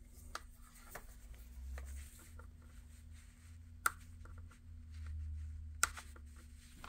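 Light handling clicks at the charging port of a Rad Power Bikes e-bike battery as a charger's barrel plug is brought to it, with two sharper clicks about two seconds apart, over a faint low rumble.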